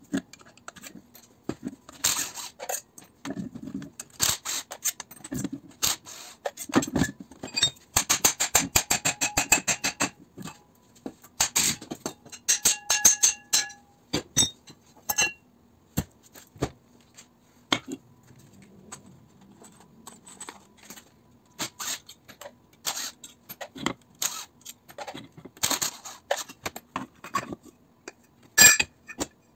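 Metal clinks, clicks and knocks of hand tools and parts while a small electric motor is taken apart on a steel bench, with a quick run of clicks about eight seconds in and a metal part ringing around twelve seconds.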